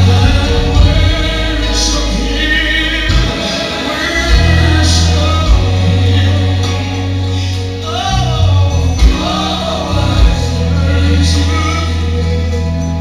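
Gospel music with a choir singing over a strong, sustained bass line.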